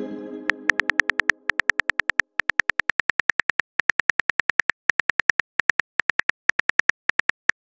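Phone-keyboard key clicks from a texting-story app: quick runs of short taps, several a second, with brief pauses between runs, as a text message is typed. At the start, a short chime fades out.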